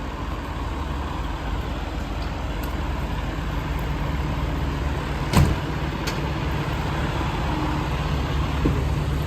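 Fire apparatus engine idling steadily, with one sharp thump about five seconds in.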